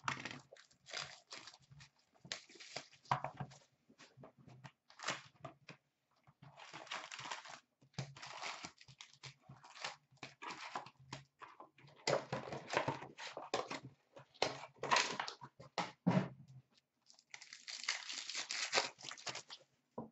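Plastic wrapping crinkling and tearing as a shrink-wrapped hobby box of hockey cards is unwrapped and opened and its packs are handled. It comes in runs of crackle a second or two long, with light taps and clicks between them.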